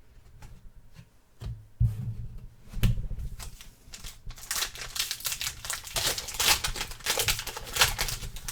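Trading cards and their foil pack being handled at a table: a few soft knocks, then from about four seconds in a dense crackly crinkling of the wrapper as it is torn and worked open.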